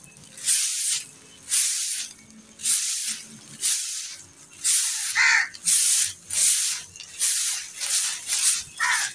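Straw broom sweeping a dusty concrete floor: brisk, repeated swishing strokes, roughly two a second.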